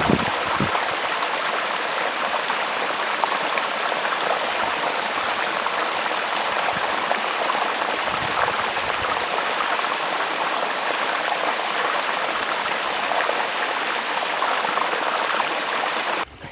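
Mountain stream rushing over rocks, a steady loud wash of running water that cuts off abruptly near the end.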